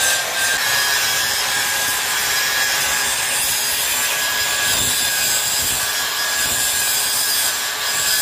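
Handheld angle grinder sharpening the steel cutting blades of a machine's rotor: the disc grinds steadily against the metal with a constant hiss and a thin steady whine, holding an even pitch and load throughout.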